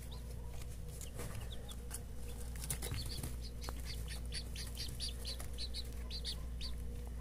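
Balão GSB chicks peeping: a quick string of short, high chirps that grows busier from about halfway in, over a steady low hum.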